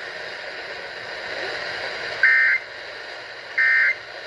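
Emergency Alert System end-of-message data bursts over a weather radio broadcast: steady radio hiss, then about two seconds in, two short identical buzzing data bursts a little over a second apart, signalling the end of the alert message.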